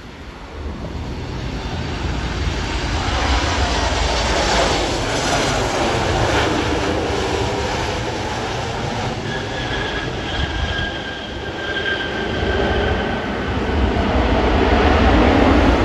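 Aircraft engines running: a loud, continuous rumble and rush with a thin steady whine partway through, growing louder near the end.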